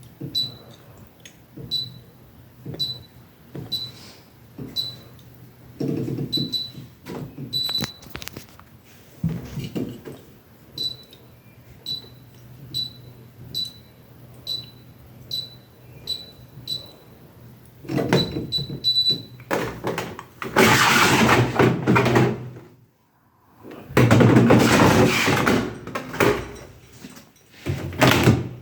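Beko DRX823N heat pump tumble dryer's control panel beeping: a short high beep about once a second, then a quicker run of beeps. In the last third come two louder stretches of rushing, clattering noise from the machine, split by a brief gap.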